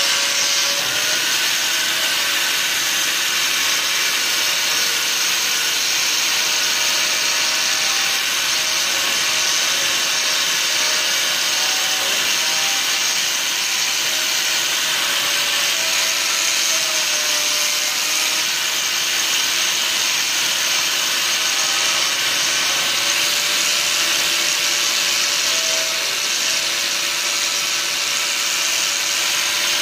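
Hand-held electric angle grinder with a buffing wheel running steadily while polishing a steel plate, the spinning wheel rubbing across the metal. The motor's whine drifts slightly up and down in pitch as the pressure on the work changes.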